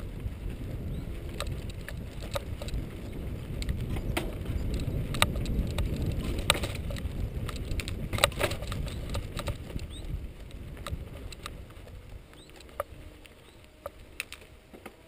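Mountain bike rolling over a bumpy grass trail: a low rumble of tyres and ground, with scattered sharp clicks and rattles from the bike, easing off near the end.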